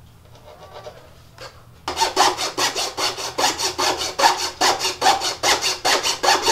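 Small metal-frame hand saw cutting across a slatted wooden panel, starting about two seconds in with quick, even back-and-forth strokes at about four a second. The edge of the panel binds against the small saw.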